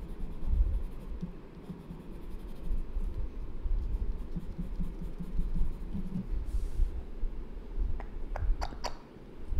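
Pencil scratching on paper as a drawing is shaded, over a low rumble of hand and desk movement. A few light clicks come near the end.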